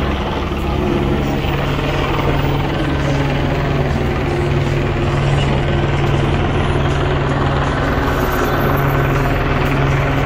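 Helicopter rotor and engine running steadily, a constant loud drone with a fast low chop from the blades.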